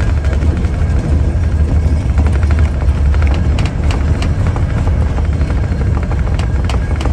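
Coal-fired cog railway steam locomotive working up the mountain: a loud, rapid, steady chuffing exhaust with hissing steam over a deep rumble.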